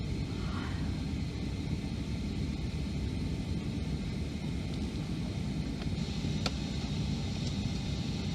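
Steady low rumble of cabin noise inside a Boeing 757-200 on the ground, with a faint steady high whine and a single click about six and a half seconds in.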